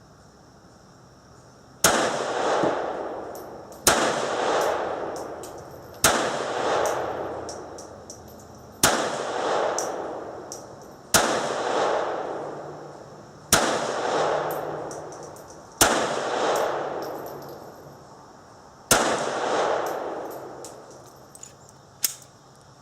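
CZ-27 pistol in .32 ACP firing eight single shots in slow, aimed fire, roughly every two to three seconds, each shot followed by a long echoing decay. A faint click comes near the end.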